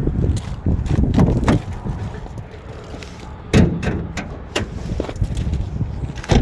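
Footsteps with a handful of irregular sharp knocks and clicks, the loudest about three and a half seconds in and again near the end.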